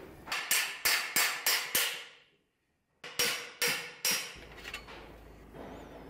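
Hammer blows on metal bicycle parts: six sharp, quick strikes about three a second, then, after a short break, three more.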